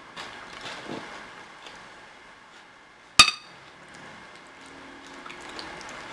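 A metal spoon clinks once against a white ceramic bowl about three seconds in, with a short ring. Softer scraping follows as it scoops up cooked fava beans.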